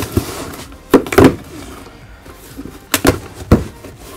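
Stapled cardboard box being pulled open by hand: about four sharp pops and rips as the stapled flaps tear free, with cardboard rustling between them.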